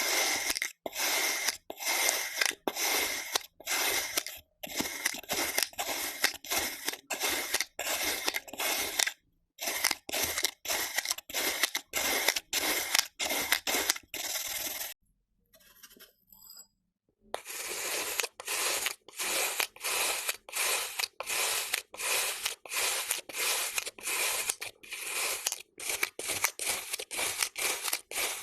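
Kinetic sand being cut with a knife, one short slicing stroke after another at about two a second, with a pause of about two seconds near the middle.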